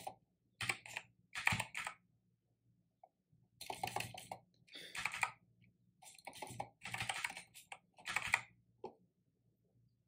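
Computer keyboard typing in short bursts of keystrokes, about seven clusters with brief pauses between them.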